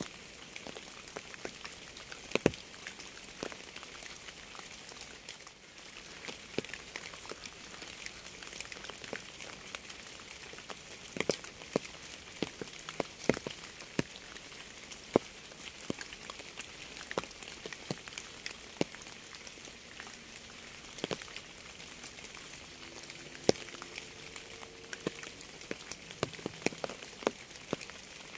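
Rain falling: a steady hiss with frequent sharp, irregular taps of single drops landing close by.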